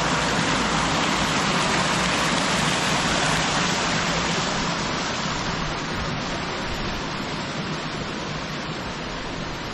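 Steady rush of water from a mountain stream cascading over rocks, slowly getting fainter toward the end.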